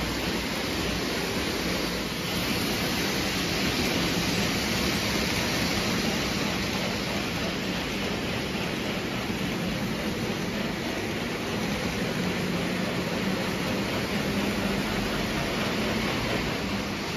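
O gauge model train rolling on three-rail tubular steel track, a steady rumble of wheels and motor.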